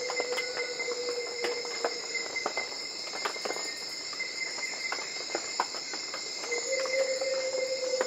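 Dense tropical insect chorus: a steady high buzzing and shrilling with scattered short ticks. A faint, low, steady tone fades out about two seconds in and returns near the end.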